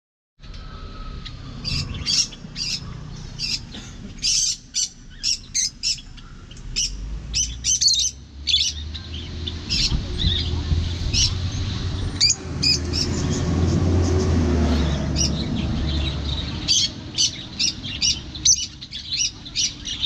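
Caged lovebirds giving short, shrill chirps in quick clusters, over a low rumble of road traffic that swells midway through.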